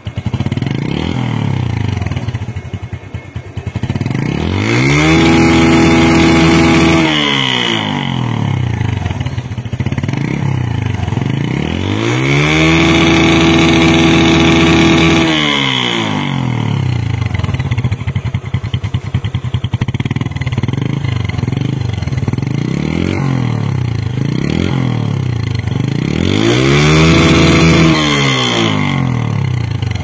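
Bajaj Discover 135's 134 cc single-cylinder, air-cooled four-stroke engine heard at the exhaust, idling and revved over and over. Short throttle blips come between three longer revs that rise, hold for two to three seconds and fall back to idle.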